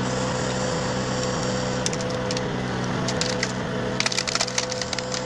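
Wood chipper running steadily while it chips wood, with clusters of sharp cracking and splintering about two seconds in and again from about four seconds in.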